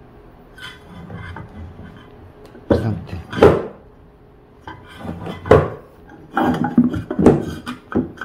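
Sealed lead-acid UPS batteries being shifted and set back into a steel UPS case: their plastic casings knock and scrape against each other and the sheet-metal bracket. There are several scattered sharp knocks, in clusters, mostly in the second half.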